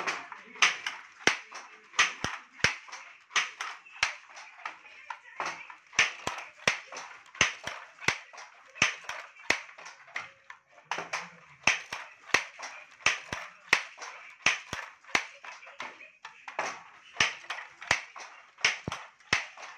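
Wooden handloom weaving: a steady run of sharp wooden clacks, about two a second, as the batten is swung and beaten up against the cloth.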